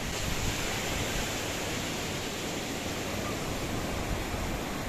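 Steady wash of sea surf breaking on the shore, strong waves.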